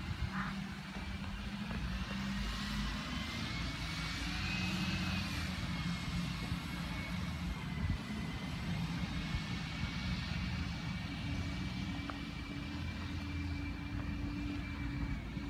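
Thorntons bin lorry's engine running at a distance, a steady low rumble under a thin high whine that wavers slightly in pitch.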